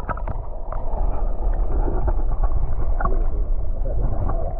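Muffled underwater rush and gurgle of river current heard through a submerged camera, a heavy low rumble with the high end cut away. A few soft knocks come in the first second and one more about three seconds in.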